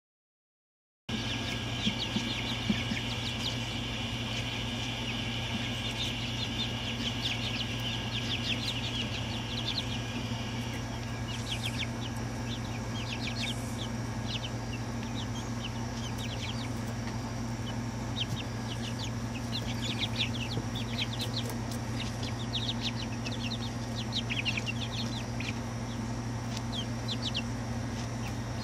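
Young chickens peeping and chirping: a dense run of short high calls for the first several seconds that then thins to scattered peeps, over a steady low hum.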